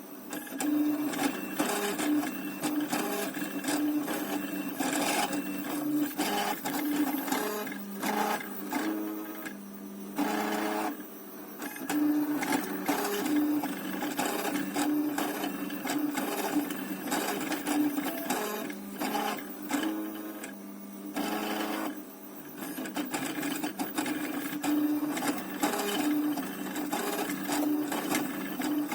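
Small stepper motors of a homemade 3D printer built from old CD-drive mechanisms, buzzing and whining in rapid stop-start moves while printing, with two brief lulls.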